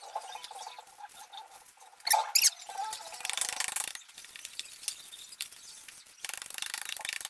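Paper towel and a thin plastic food-prep glove rustling and crinkling as raw beef short ribs are patted dry on a wooden cutting board, with two sharp crackles a little after two seconds in and more rustling near the end.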